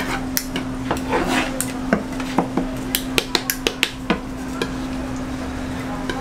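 Flat metal scraper knocking and scraping on a plastic cutting board as fish cake paste is spread thin and rolled, with a quick run of sharp taps around the middle. A steady low hum runs underneath.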